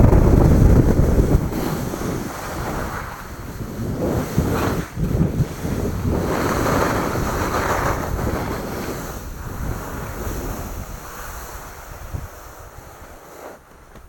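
Wind buffeting the microphone of a camera moving down a ski slope, mixed with skis hissing and scraping over packed snow. It is heaviest in the first second or two, surges again in the middle, and dies down toward the end.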